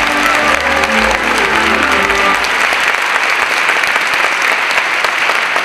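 Audience applauding, with the last notes of the stage music ending about two seconds in.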